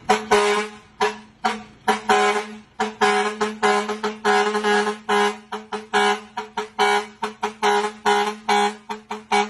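A four-foot vehicle horn honked in quick rhythmic blasts, about three a second, over a steady low drone, sounding much like a brass instrument.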